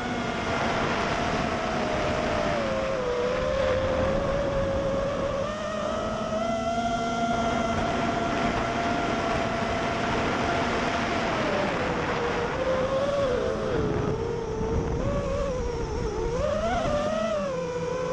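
FPV racing drone's motors whining, the pitch holding and then swinging up and down with the throttle in the last few seconds, over low rumbling wind noise on the microphone.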